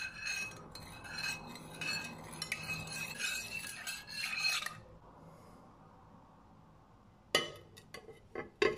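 Metal spoon stirring granules into water in a glass bowl, scraping and clinking against the glass with a ringing tone, for about four and a half seconds. Near the end come a few sharp knocks and clinks.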